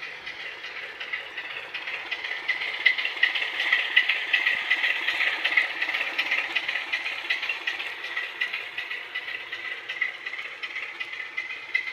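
Class 27 diesel engine sound played by a model locomotive's DCC sound decoder through its small onboard speaker, thin and high with little bass, over a fast rattling clatter. It builds up louder about two seconds in and eases back after about seven seconds.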